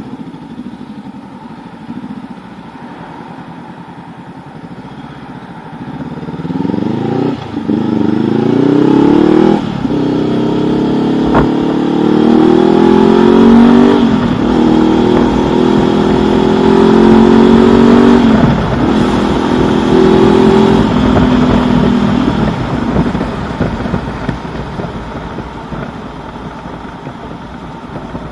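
A 2019 Honda CB500X's parallel-twin engine through a replica Mivv Suono exhaust, under way: running low for the first few seconds, then accelerating through the gears, the pitch climbing and dropping back at each of four upshifts, before easing off near the end.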